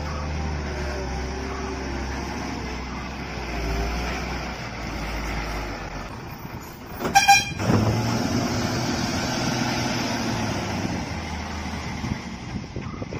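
Diesel tipper truck engine running, with a short horn toot about halfway through. After the toot the engine runs harder and steadier as the hydraulic tipper raises the bed loaded with concrete bricks.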